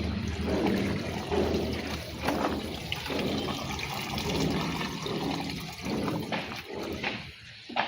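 JCB 3DX backhoe loader's diesel engine running under load while loose mud rushes out of the bucket into a truck bed. The rushing dies down near the end.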